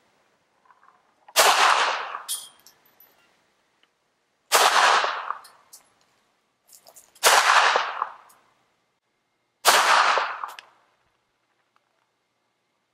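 Four single handgun shots, roughly three seconds apart, each a sharp crack with a short echo trailing off.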